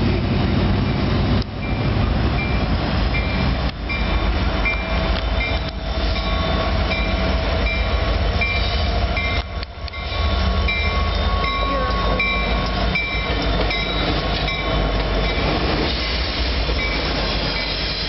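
CN freight train with diesel locomotives passing close by: a steady low rumble of engines and rolling cars. Over it, a short high-pitched tone repeats about twice a second.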